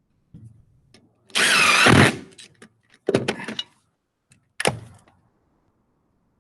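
Handheld power driver spinning lug nuts onto a car wheel's studs in three bursts, one long one followed by two short ones, its motor whining and wavering in pitch.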